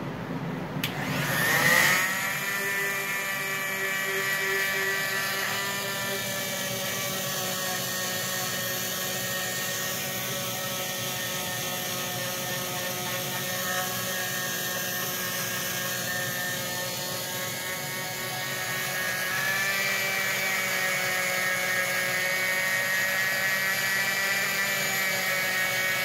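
An old Fein Multimaster oscillating tool is switched on about a second in. Its motor whine rises quickly to speed, then runs steadily while its sandpaper-faced putty-knife pad sands grooves in hickory. The pitch rises a little about twenty seconds in. A low steady hum of a jet air filter runs underneath.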